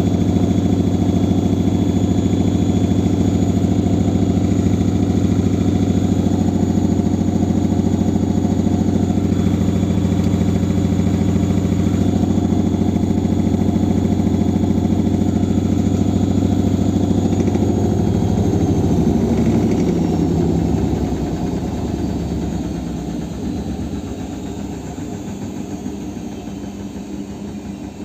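Siemens washing machine spinning at high speed with a loud, steady, helicopter-like thrum. About two-thirds of the way in, a high motor whine starts to fall and the drum winds down, getting steadily quieter as the spin slows.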